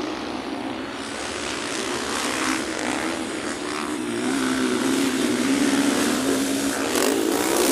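Motocross dirt bike engines running and revving as the bikes race round the track, growing louder near the end.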